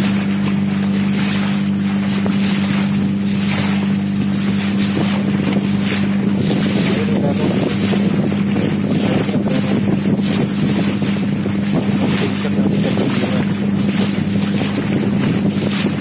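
Engine of a small outrigger boat (katir) running at a steady speed, an even hum, with wind buffeting the microphone.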